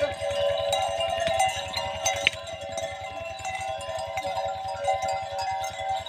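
Many bells on a walking herd of cattle ringing and clinking together without a break, over a fast, even low pulse.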